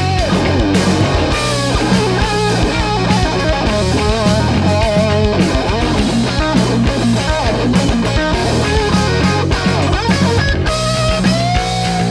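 Live rock band playing an instrumental passage: an electric guitar line with bent, wavering notes over bass guitar and a drum kit keeping a steady beat.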